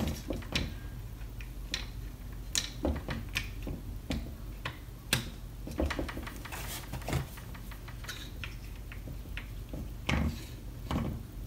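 Irregular clicks and light knocks of small plastic and metal parts of a Makita 6043D cordless drill being handled and fitted together during reassembly, a few of them sharper and louder.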